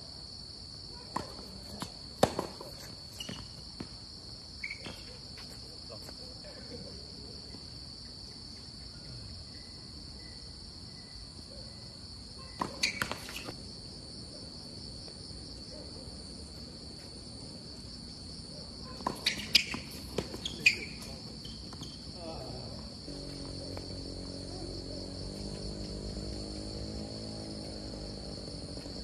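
Tennis balls being struck by rackets and bouncing on a hard court, heard as short clusters of sharp pops at the start, about halfway through and again about two-thirds through, over a steady high chirring of insects. A low, even hum joins in the last few seconds.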